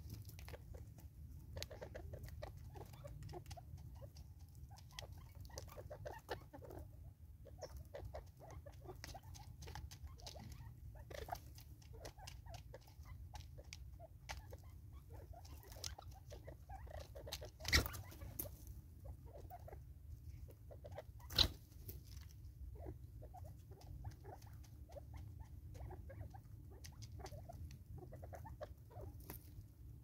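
Francolins pecking seed from a plastic feeder on a tree stump: a faint, irregular run of quick light taps and ticks, with two sharper knocks a few seconds apart past the middle, over a low steady rumble.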